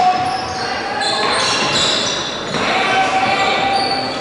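Players' indoor shoes squeaking on the sports-hall floor during indoor hockey play, several squeals at different pitches over the general noise of the hall.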